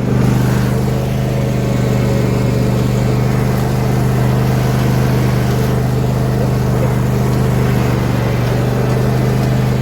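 John Deere D125 lawn tractor engine running steadily under load, a loud, even drone that steps up just at the start.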